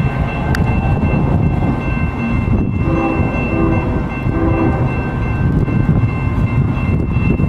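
Diesel freight locomotive horn sounding three short blasts about three seconds in, over a steady low rumble.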